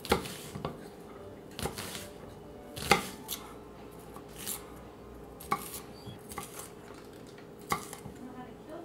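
Kitchen knife chopping onion and bell peppers on an end-grain wooden cutting board: irregular sharp knocks of the blade on the board, the loudest right at the start and about three seconds in.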